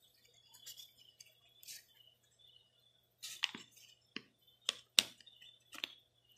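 Quiet handling of a folded paper origami mask: soft paper rustles, then about five sharp clicks in the second half, the loudest about five seconds in.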